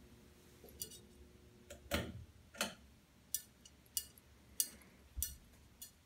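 Ceiling fan with a fluorescent light kit running, giving sharp, light ticks or clinks about every two-thirds of a second as it turns.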